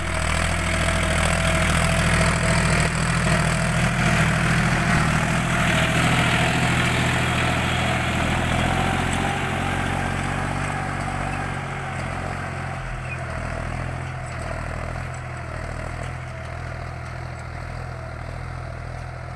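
John Deere 5050D 4WD tractor's three-cylinder diesel engine running steadily under load while pulling a cultivator through dry soil. It is loudest as it passes close, then fades slowly as it moves away over the second half.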